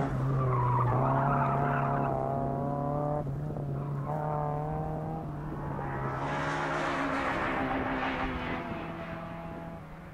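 Car engine on an autocross run, its note rising and falling as the driver works the throttle through the cones, with tyre noise about six seconds in; the sound fades near the end.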